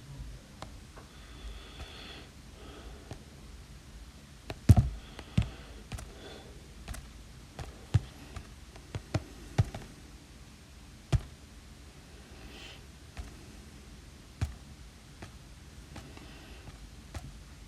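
A stylus tapping irregularly on an iPad Pro's glass screen, with a few short, faint scratching strokes between the taps; the loudest tap comes about five seconds in.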